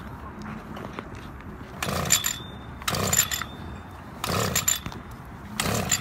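Gas-powered ice auger's recoil pull-cord yanked four times, each pull a short whirring rasp about a second apart; the two-stroke engine does not catch.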